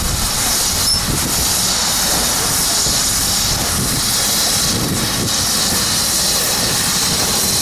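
BR Standard 5MT 4-6-0 steam locomotive venting steam from low down beside its cab, a loud steady hiss over a low rumble.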